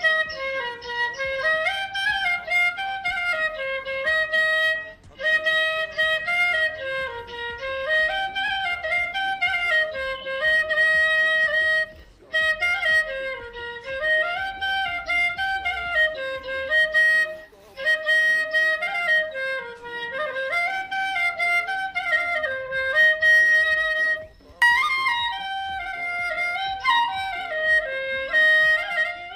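Instrumental music: a single reedy wind instrument playing a repeating melody in phrases of several seconds, with a short break between phrases four times.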